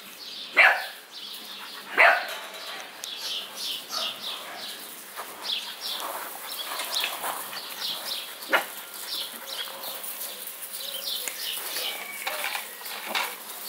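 American Bully puppies giving sharp yips and barks as they play, loudest about half a second and two seconds in, with a smaller yap later on.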